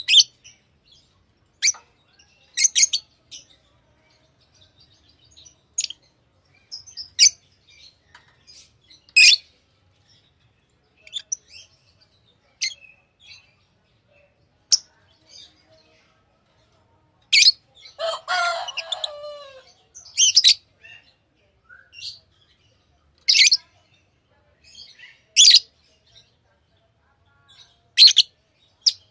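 Pet lovebirds giving short, sharp high chirps every second or two, with one longer call of falling notes about eighteen seconds in.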